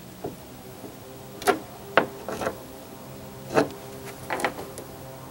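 A string of sharp clicks and knocks, unevenly spaced, as metal hardware and tools are handled against the boat's transom, over a faint steady hum.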